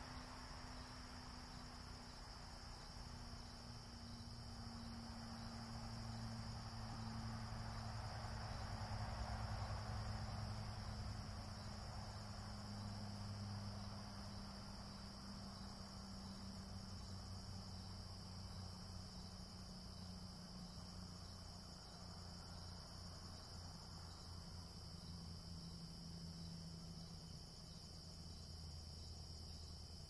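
Evening chorus of crickets: a steady high-pitched trill without a break. Under it a faint low hum drifts slowly down in pitch and swells about ten seconds in, then fades.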